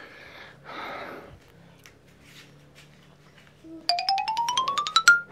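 A quick rising run of about a dozen short bell-like notes, stepping upward in pitch over about a second near the end, which is a comic sound effect added in the edit. Before it there are two short soft noises in the first second or so.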